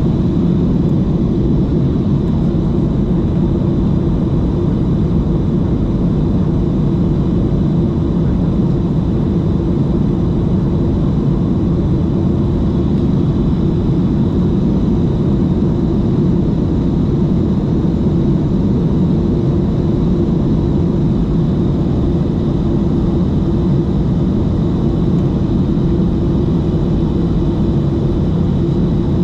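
Steady roar of engines and rushing air heard inside the cabin of a Boeing 737 MAX 8 climbing after takeoff, with a faint steady high whine above it.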